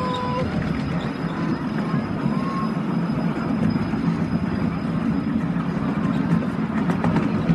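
Ride-on miniature railway train running along the track, heard from aboard a passenger car: a steady low rumble of wheels on the rails.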